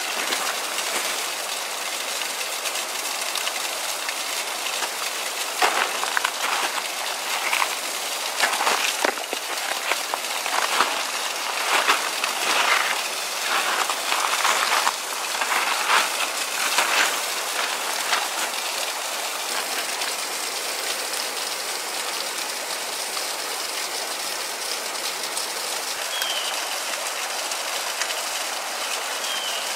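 Steady rushing hiss of a creek and a partly frozen waterfall, with a run of short scuffing noises through the middle.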